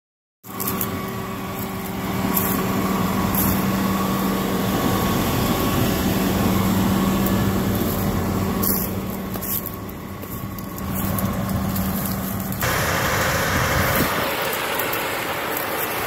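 John Deere CS690 cotton picker's diesel engine running up close with a steady hum and a few light clicks. About three-quarters of the way through, the sound cuts abruptly to a steady rushing noise.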